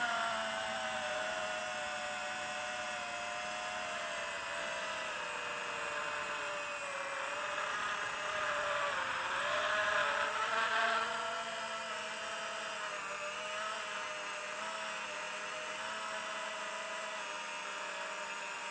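FPV quadcopter's brushless motors and propellers whining, recorded on board, the pitch drifting up and down with throttle and swelling louder for a stretch around the middle.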